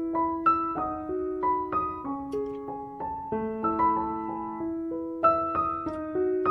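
Background piano music: a light melody of single notes over held lower notes, with a new note every few tenths of a second.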